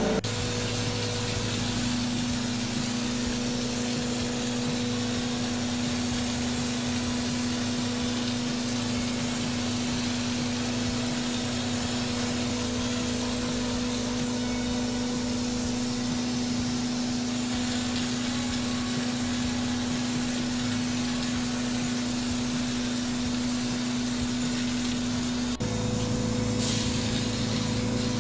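Texture sprayer running: its motor hums steadily at one pitch while the hose-fed spray gun hisses, spraying texture onto the walls and ceiling.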